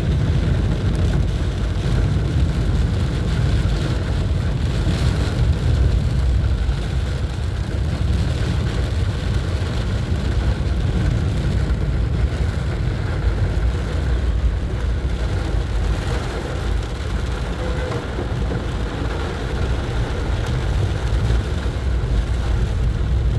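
Car driving in heavy rain: a steady low rumble of the car on the wet road, with an even hiss of rain over it.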